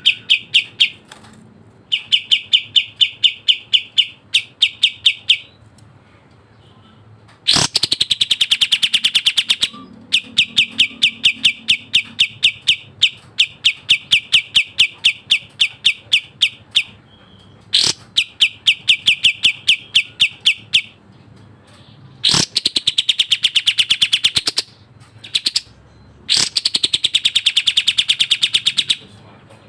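Kapas tembak songbird singing in fast, tightly packed runs of repeated high chirping notes, about eight to ten a second, in bursts of a few seconds with short pauses between. Several bursts start with a sharp louder note.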